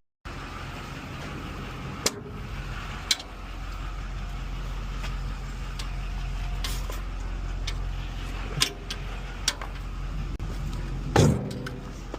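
Split firewood logs hitting the ground in about five separate hard knocks, the loudest near the end, over the steady hum of an idling vehicle engine.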